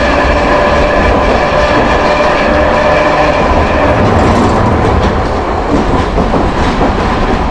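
Hankai Tramway Mo161's nose-suspended traction motors and gearing whining as the tram runs, heard from the driver's cab. The whine fades about halfway through, leaving wheel rumble and clicking over the rail joints.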